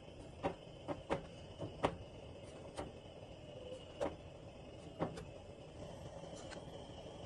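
A wooden stick pricking holes in thin rolled-out paratha dough and tapping on the metal plate underneath. There are about eight sharp taps: several quick ones in the first two seconds, then one about every second, stopping about five seconds in.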